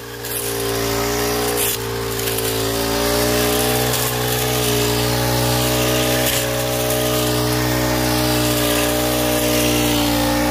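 Brush cutter engine running at high speed while its metal blade cuts through weeds and grass. It gets louder over the first few seconds, then holds steady.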